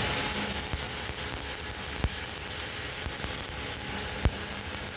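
Electric arc welding: a steady crackling hiss, with a sharp pop about two seconds in and another a little after four seconds.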